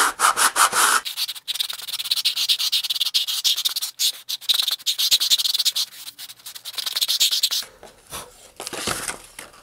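Fine sandpaper wrapped around a model rocket body tube, with a fairing rubbed quickly back and forth against it: rapid scratchy sanding strokes that stop about three-quarters of the way through, leaving only a few faint scrapes.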